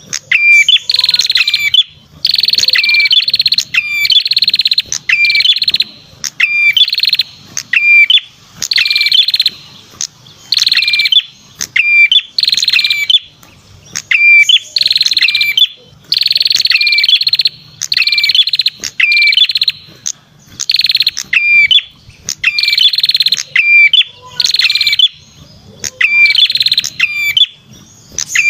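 Lure song of the red-headed perenjak, a small songbird: loud phrases of rapid, sharp high-pitched notes, each about a second long, repeated over and over with short gaps. This is the kind of call played to attract birds.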